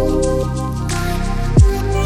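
Background music with sustained soft synth tones. About a second and a half in, a falling sweep ends in a deep boom.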